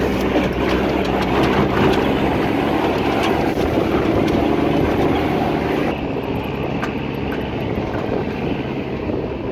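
Mercedes-Benz Unimog's diesel engine running steadily while the truck drives off-road, heard from its open wooden cargo bed, with scattered knocks and rattles from the bed and the rough track. The sound gets slightly quieter about six seconds in.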